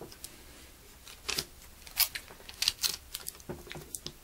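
Clear plastic tape being handled and pressed down over wires and a small circuit module on a tabletop: a scattered string of short crinkles and taps.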